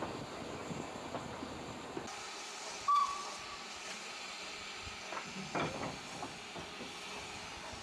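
Steam locomotive, a pannier tank, working past with a steady hiss of escaping steam. About three seconds in there is a very short, sharp whistle note.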